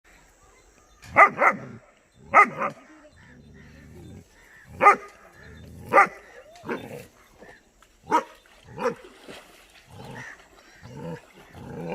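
German Shepherd puppy barking: short, sharp barks, about seven loud ones, some in quick doubles, with softer yips and barks between them.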